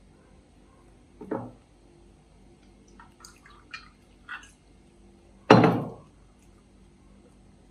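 Water poured from a glass pitcher into a drinking glass in a few short splashes, between a light clink about a second in and a louder knock at about five and a half seconds as glass meets the glass tabletop.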